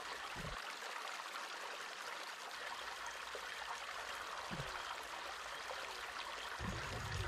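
Steady rushing noise of flowing water.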